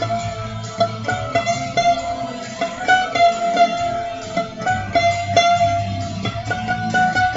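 Guitar music: a run of plucked notes over a held melody line and a steady bass.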